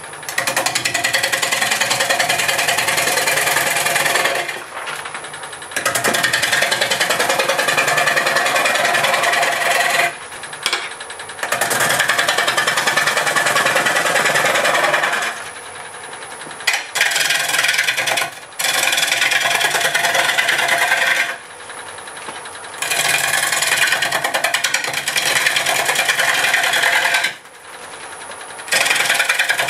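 Turning tool cutting into a spinning green apple-wood half-log on a wood lathe running at about 600 RPM. The cut comes in passes of a few seconds each, with short breaks where the tool comes off the wood: the roughing cut that rounds the half-log.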